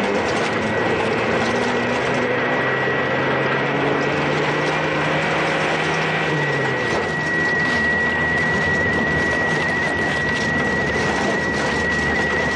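Vehicle engine and drivetrain running while driving, heard from inside the vehicle: a steady hum whose pitch creeps up and then drops about seven seconds in, with a thin high whine that is stronger in the second half.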